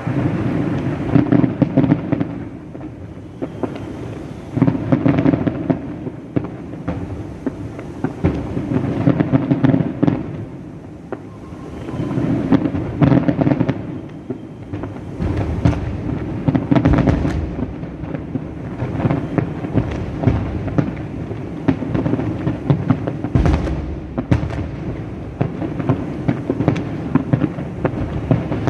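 Large fireworks display going off continuously: a dense run of bangs and crackle that swells into louder surges every few seconds.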